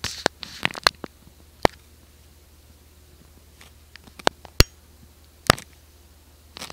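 Scattered sharp clicks and taps from a camera being handled: a few in the first second, then a few more between about four and five and a half seconds in. A low steady electrical hum runs underneath.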